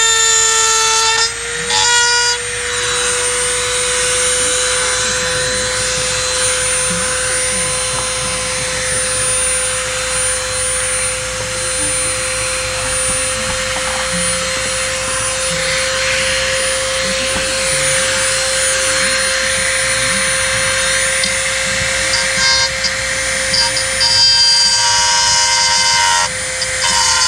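A small handheld power tool, such as a rotary tool or drill, runs continuously with its pitch wandering as the load changes, as in cutting or grinding. A multi-chime locomotive-style air horn sounds briefly at the start and again near the end.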